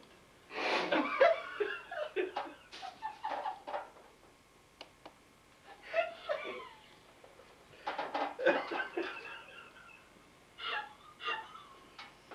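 People laughing in four bouts, with quiet pauses between.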